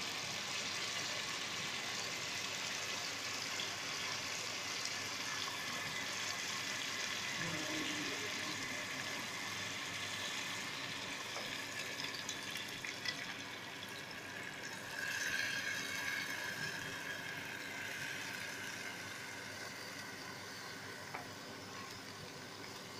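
Tomato-onion masala sizzling steadily in oil in a pot. About two thirds of the way through, soaked moong and masoor dal with its water is poured in, and the sound briefly grows louder.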